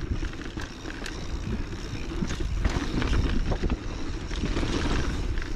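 Mountain bike rolling fast over rock and dirt trail: the tyres rumble and the bike rattles with scattered small knocks as it bounces over the rocks, with wind buffeting the camera microphone.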